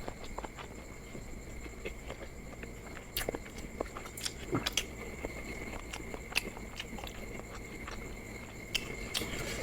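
Close-miked chewing and biting of chewy instant noodles: a run of scattered short wet clicks and smacks at irregular intervals.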